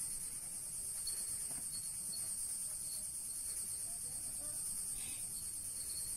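Steady, high-pitched shrilling of an insect chorus that does not let up.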